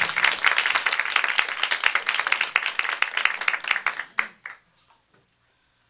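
A small audience applauding, with dense clapping that thins out and dies away about four seconds in.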